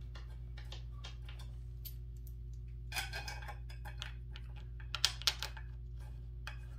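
Scattered small metallic clicks and taps as M6×30 bolts are set and hand-started into the desk's welded metal frame, with a cluster about three seconds in and the sharpest clicks around five seconds. A steady low hum runs underneath.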